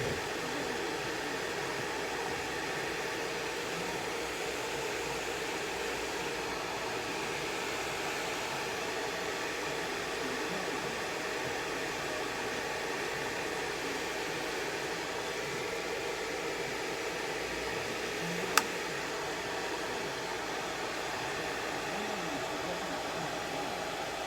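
Hair dryer running steadily, blowing a chihuahua's coat dry, with one sharp click about three-quarters of the way through.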